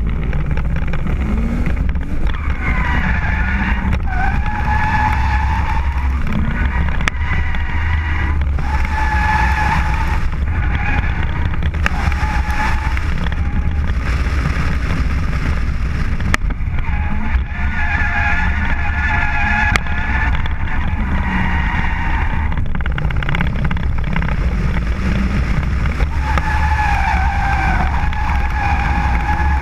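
BMW drift car sliding, its tyres squealing in several long wavering stretches over a steady heavy rumble of engine and wind buffeting on a camera mounted outside the car.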